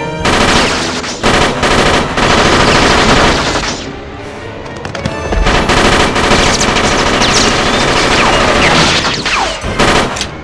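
Rapid, continuous gunfire from added film sound effects: long volleys of shots that ease off briefly about four seconds in, then pick up again just as densely.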